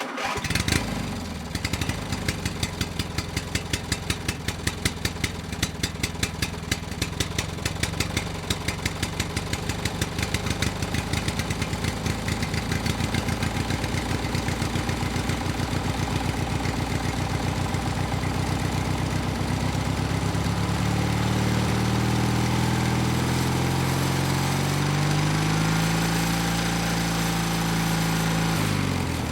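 Two-stroke engine running at a slow, uneven idle with sharp beats that gradually quicken. From about two-thirds of the way through it is revved, the pitch rising and falling, and it drops back right at the end.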